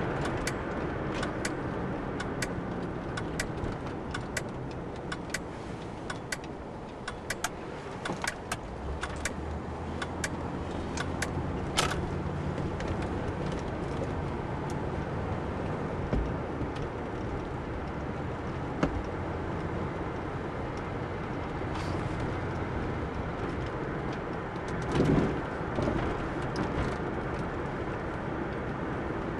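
Steady road and engine noise inside a moving car's cabin, with scattered light clicks and rattles through the first half and one short louder swell near the end.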